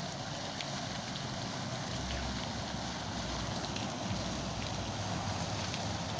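Water fountain running: a steady splash of falling water with scattered small droplet plinks.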